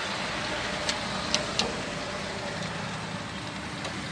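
John Deere 5105 tractor's three-cylinder diesel engine running at idle, with a few light clicks in the first couple of seconds.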